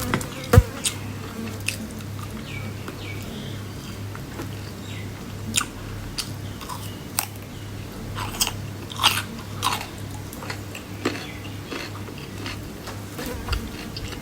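A person eating close to the microphone: chewing and biting food, with irregular sharp crunches and mouth clicks.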